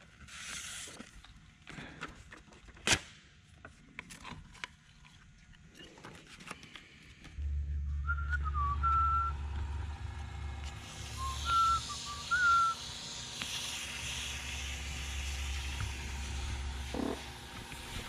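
Clicks and knocks of handling, then a small wood lathe's motor starts about seven seconds in and hums at low speed while sandpaper hisses against the spinning epoxy knob. Over it a person whistles a few short notes.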